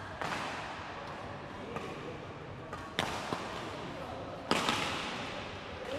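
Three sharp knocks ring out through a large, echoing sports hall: one just after the start, one about three seconds in, and the loudest about four and a half seconds in. Faint voices are heard underneath.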